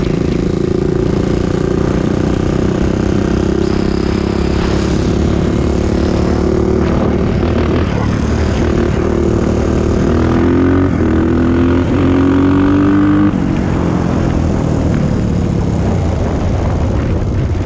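Honda TRX400EX quad's single-cylinder four-stroke engine running under way. Its pitch climbs as it accelerates from about ten seconds in, then drops suddenly as the throttle is let off.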